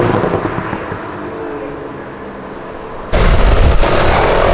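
A BMW hatchback's engine pulling away, its sound fading over about three seconds. Then, a little after three seconds in, a sudden loud low rumble of traffic and wind noise takes over.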